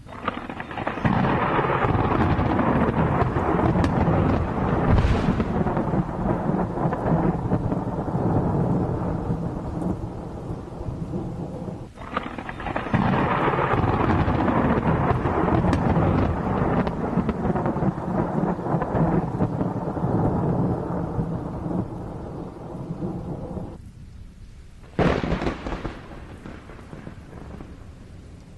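Thunder during a rainstorm: two long rolling peals, each breaking out suddenly and rumbling for about ten seconds, then a short sharp crack near the end, over steady rain.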